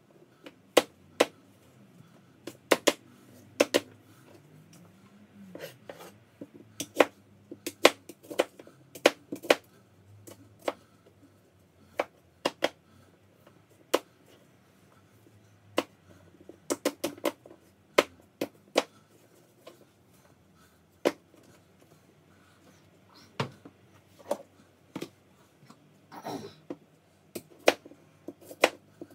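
Kitchen knife cutting apples on a cutting board: irregular sharp knocks of the blade striking the board, some in quick runs and some spaced a second or more apart.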